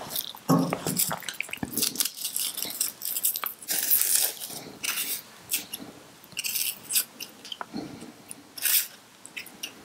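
Small paring knife cutting and scraping the dry papery skins off small onions: a run of irregular short crackles and scrapes.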